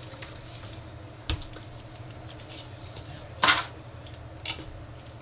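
Chicken brine poured from a plastic bag through a fine mesh strainer into a foil pan: soft trickling with a few brief rustles and splashes, the loudest about three and a half seconds in, over a low steady hum.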